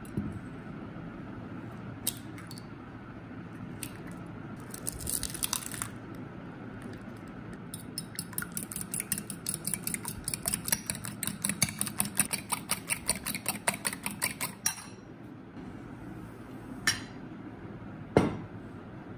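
Eggs cracked into a glass bowl with a few sharp taps, then beaten with a fork that clinks rapidly against the glass, about five strokes a second for some seven seconds. Two louder glass knocks near the end as a bowl is set down.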